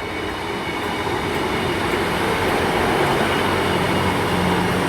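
A pair of Class 158 diesel multiple units coming into the platform, their diesel engines running under the rumble of the train, growing gradually louder. A steady low engine note comes through near the end.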